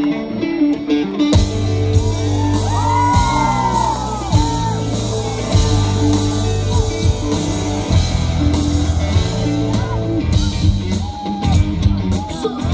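Live rock band playing loudly through a large PA: electric guitars with bass and drums. The full band, with heavy bass and drums, comes in suddenly about a second and a half in.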